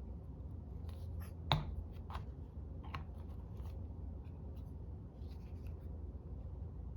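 Scissors snipping through craft material: a few separate short cuts, the sharpest about one and a half seconds in, with softer snips and handling after.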